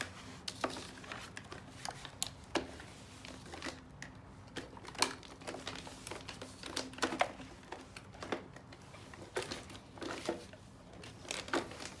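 Microfiber cloth rubbing over a robot vacuum's plastic casing, with rustling of the paper sheet underneath and scattered light clicks and knocks as the robot is handled.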